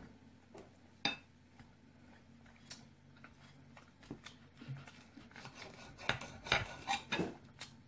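Knife and fork clinking and scraping on a ceramic plate. There is a sharp click about a second in, then scattered light taps, then a run of louder clinks over the last two seconds.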